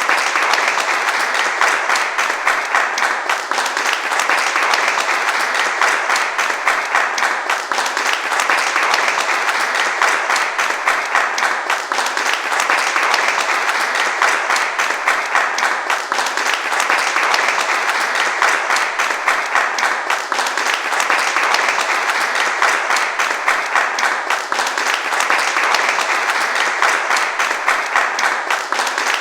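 A crowd applauding steadily, many hands clapping densely without a break, with a slight swell that repeats about every four seconds.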